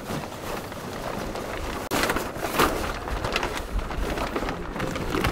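Wind rumbling on the microphone with a rushing hiss and scattered knocks and rustles aboard a sailing boat under way; the noise jumps louder about two seconds in.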